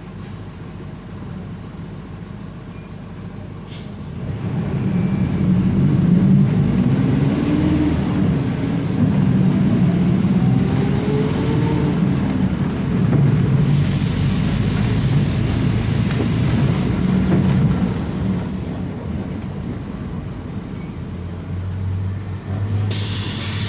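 Mercedes-Benz OF-1721 Bluetec 5 bus's diesel engine pulling hard at high revs from about four seconds in. A differential whine climbs and falls in pitch as it goes. The engine eases off after a while, and a burst of air hiss comes near the end.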